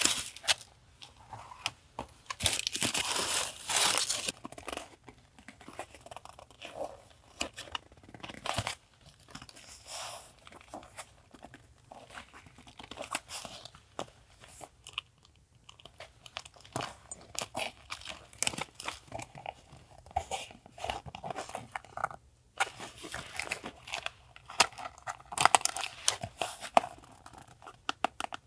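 Paper and packaging handled close to the microphone: crinkling, rustling and tearing in irregular bursts, with small taps and clicks between. The loudest stretches come near the start, a few seconds in, and again near the end.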